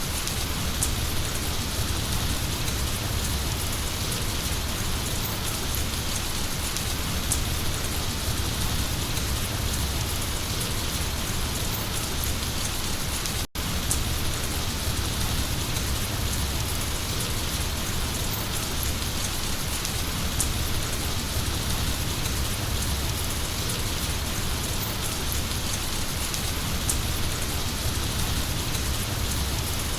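Heavy rain falling steadily, a dense even hiss of drops with a few sharper drop ticks. The sound cuts out for an instant about halfway through.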